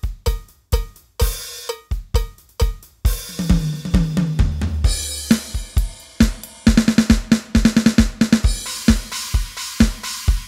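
Drum samples played from a Roland SPD-SX sampling pad: a steady beat of kick drum hits with a short ringing tone on each, then a busier groove with a cymbal wash, a brief deep bass note and fast pitched tom-like hits over hi-hat. It stops at the end, leaving a short ring-out.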